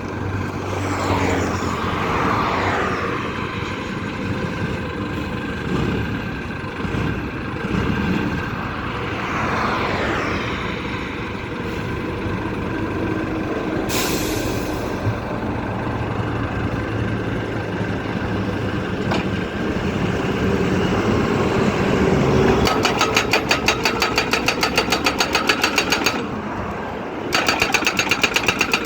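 Engine of a DD950B crash-barrier pile driver running steadily. Its pitch sweeps down twice in the first ten seconds, and a short hiss comes about halfway. In the last six seconds the hammer strikes in a fast, even run of about six blows a second, pauses for about a second, then resumes.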